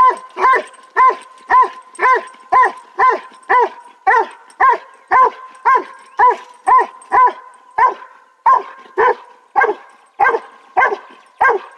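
A dog barking at a raccoon over and over in a steady rhythm, about two barks a second, each bark the same short arching call.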